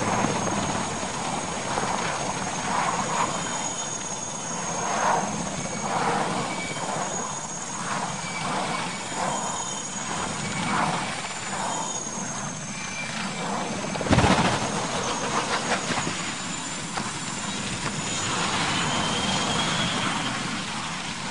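Military transport helicopter's turbine engines whining with rotor noise, broken by one loud crash about two-thirds of the way through as the tipping helicopter strikes the ground, then the engine noise continuing.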